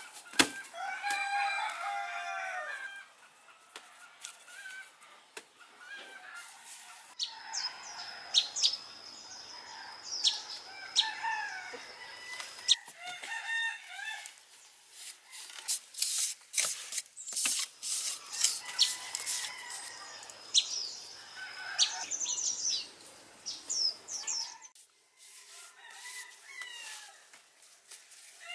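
A rooster crows once near the start, one long call of about two and a half seconds, with chickens clucking and small birds chirping around it. Sharp knocks and scrapes of stones and wet cement being handled run through the rest, with a few single knocks the loudest sounds.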